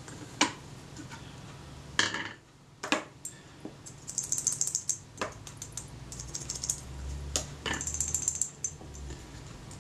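Small metal camera parts handled: sharp light clicks and short bursts of fine scratchy rattling as the Kodak Retina IIIc's shutter release finger is worked back and forth on its pivot in the front standard, working graphite powder in so that it moves freely.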